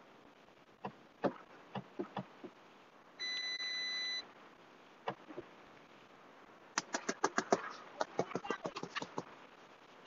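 Scattered light clicks, then a single steady electronic beep lasting about a second, then a fast, irregular run of sharp clicks near the end.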